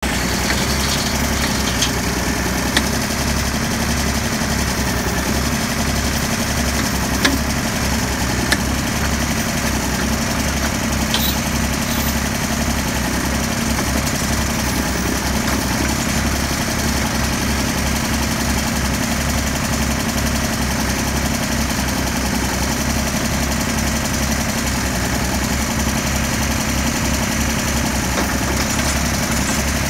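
Ditch Witch 350L trencher's engine running steadily with a low, even throb. A few short sharp clicks come in the first several seconds.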